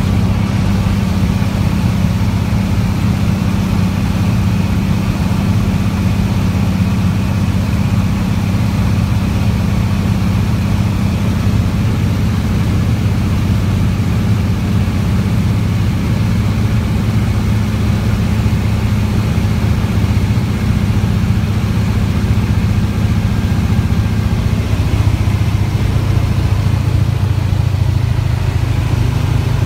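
Single-engine floatplane's piston engine and propeller running steadily, a low drone heard from inside the cabin, its tone shifting slightly about three quarters of the way through.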